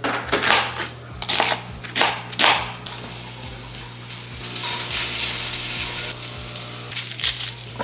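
Kitchen knife chopping an onion on a plastic cutting board, a handful of separate knocks, then food sizzling in a pot on the stove for the second half.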